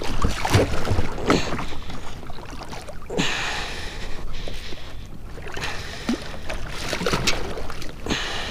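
Water splashing and sloshing at the side of a kayak in irregular bursts as a blue catfish, held in lip grippers, is let back into the water.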